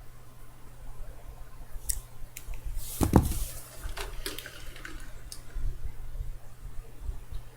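Someone drinking from a glass of iced water: ice cubes clink against the glass several times, with a louder wet drinking sound about three seconds in.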